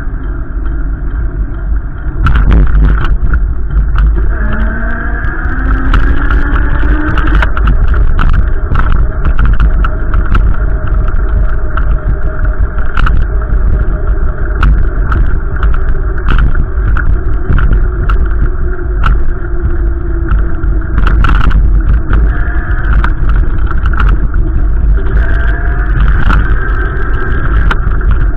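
A motor vehicle running, its engine pitch climbing a few times, under heavy low wind rumble on the microphone and occasional knocks.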